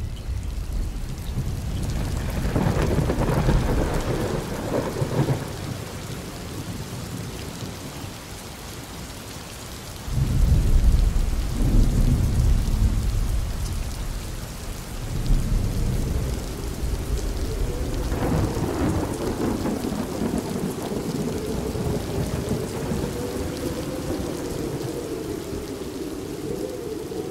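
Thunderstorm: steady rain with rumbles of thunder. The loudest rumble starts suddenly about ten seconds in. In the last third a wavering tone rises and falls over the rain.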